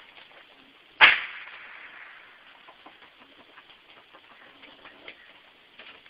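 A single sharp knock or slap about a second in, with a short fading ring, then faint scattered ticks and scratches.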